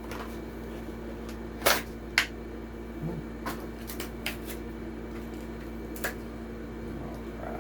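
Sharp plastic clicks and small ticks from toy-car packaging being handled and opened, the loudest about two seconds in and again near six seconds, over a steady low hum.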